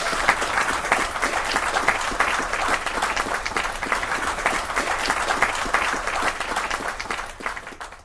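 Audience applauding after the band's last number, dense clapping that fades out near the end.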